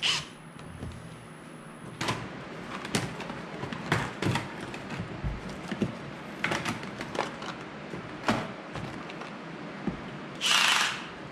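Scattered clicks and knocks of hands handling parts and tools during a kayak light install, followed near the end by one short, loud rasp.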